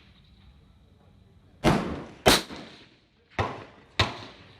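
Gunshots at a shooting range: four sharp reports, each with a short ringing tail, coming in two pairs about a second apart.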